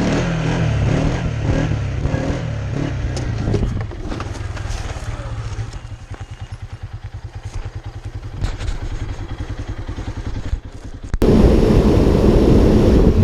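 ATV engine running with a rapid, even firing pulse, loud for the first few seconds and then easing off, with scattered knocks and clatter. About eleven seconds in it cuts off abruptly to a loud rush of wind on the microphone.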